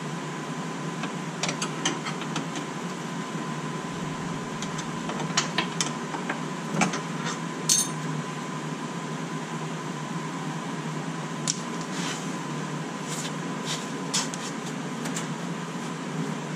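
Scattered light metallic clicks and clinks of hand work on a car's front brake caliper and brake line fitting, over a steady background hum.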